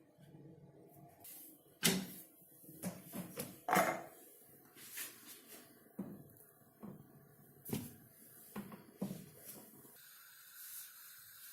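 Irregular wooden knocks and clacks of a rolling pin working a missi roti dough on a rolling board. A steady hiss begins near the end.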